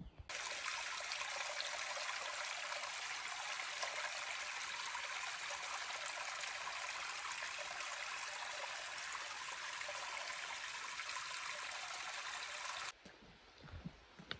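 Rushing water of a mountain stream or cascade: a steady, even rush that starts abruptly just after the beginning and cuts off suddenly about thirteen seconds in.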